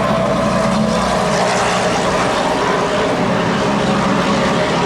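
Formula 1 car's turbocharged V6 engine heard from trackside, a steady drone at high revs.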